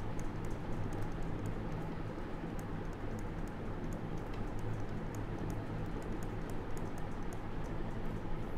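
Stylus tapping and clicking on a pen tablet while handwriting: irregular light clicks, several a second, over a steady low hum.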